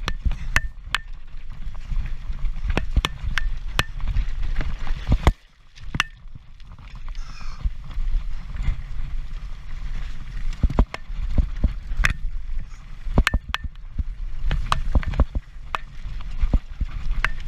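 Transition Patrol mountain bike rattling down rough ground at race speed: irregular sharp clacks of chain and frame over rocks on top of a steady rumble of wind on the camera, which drops away briefly about five seconds in.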